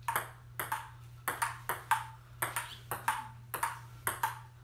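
Table tennis rally: the celluloid ball clicking back and forth off the paddles and the table top in a steady rhythm, about three clicks a second, each with a short hollow ring.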